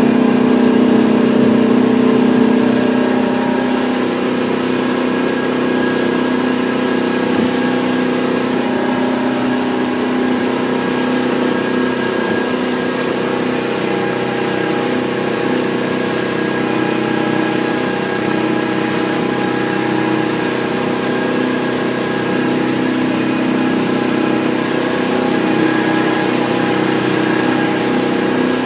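Hardy Navigator motor boat's engine running steadily under way, heard from inside the wheelhouse. It drops slightly in level about three seconds in.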